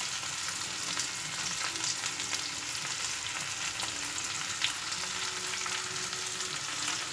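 Chopped onion and green chilli sizzling in hot oil in a kadhai, a steady frying hiss.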